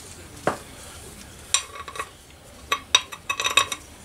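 Handful of metal closing-plate bolts clinking against each other as they are picked through in a gloved hand: a soft knock, a few scattered clinks, then a quick run of ringing clinks near the end.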